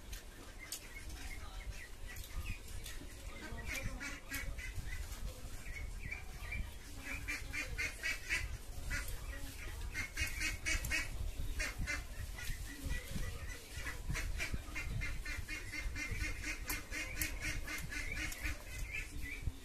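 Ducks quacking in rapid runs of short calls, sparse at first and busier from about four seconds in.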